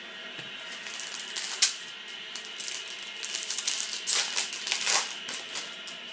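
Trading-card packs and cards being handled: a string of quick crackling and rustling, with a sharp spike about a second and a half in and a louder cluster around four to five seconds in.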